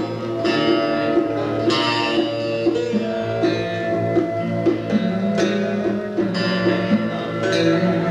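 Instrumental film-score music: a plucked string instrument picks out rapid notes over a steady low drone.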